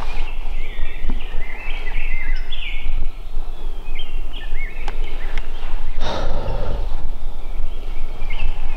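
Songbirds chirping and singing in short, repeated notes over a steady low rumble, with a brief louder rush of noise about six seconds in.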